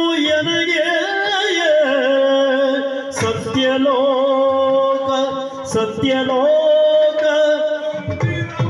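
Male Yakshagana singer (bhagavata) singing a song line with wavering, ornamented pitch glides. Two sharp drum strokes fall about 3 and 6 seconds in.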